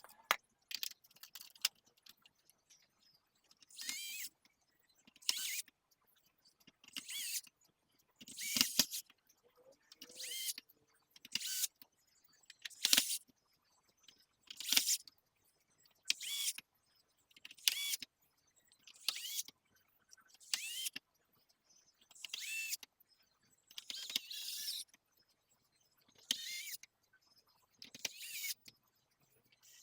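Small electric screwdriver whirring in short runs of about half a second to a second, repeated about every one and a half to two seconds, as screws are driven back into a PlayStation 5 Slim during reassembly.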